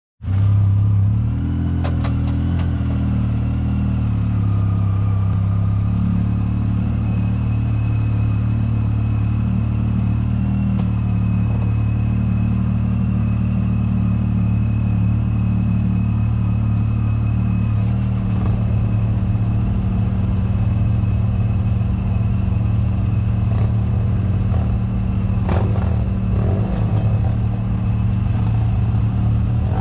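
Side-by-side UTV engine running at a fairly steady speed, its pitch shifting a little over the first few seconds, with a thin high whine over it through the middle. A few knocks and rattles come in the last several seconds.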